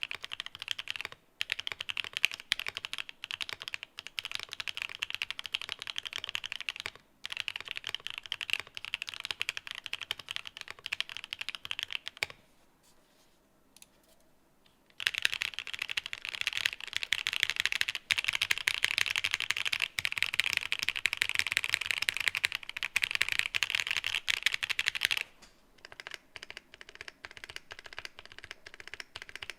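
Continuous fast typing on a Mode Eighty (The New Eighty) mechanical keyboard with KTT Strawberry linear switches and Domikey cherry-profile keycaps. The typing stops for a few seconds near the middle, resumes, then goes quieter and sparser for the last few seconds.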